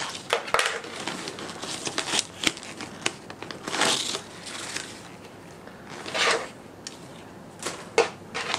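Wrapping paper on a parcel rustling and crinkling in short spells as the parcel is handled and turned over, with a few light taps.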